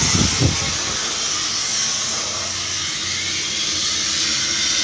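Steady hissing background noise with a faint low hum underneath, and a brief low buffeting on the microphone in the first half second.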